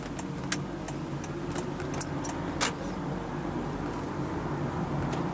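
Honda Freed+ Hybrid under way, heard from inside the cabin: a steady low hum of running and road noise that builds slowly. Over it come a series of sharp clicks during the first three seconds and another near the end.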